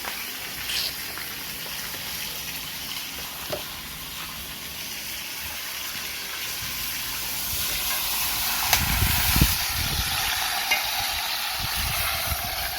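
Seasoned chicken pieces sizzling as they brown in hot oil in a pot, the sizzle growing louder about seven seconds in. A few low thuds come around nine seconds in.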